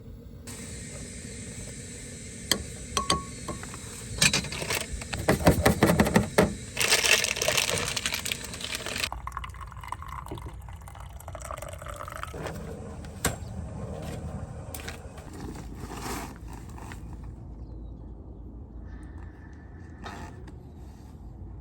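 Water running steadily into a container and cutting off abruptly about nine seconds in, with a burst of clinks and knocks in the middle, then quieter handling noises.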